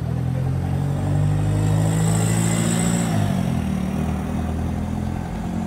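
Single-deck bus engine pulling away from the stop and driving off, a steady engine note that drops in pitch about three seconds in, with a brief high hiss around the same time.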